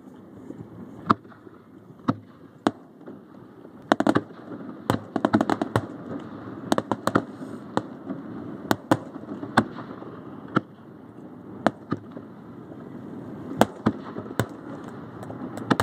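Aerial firework shells bursting one after another: sharp bangs at irregular intervals, with a quick run of cracks about four to five seconds in, over a steady background noise.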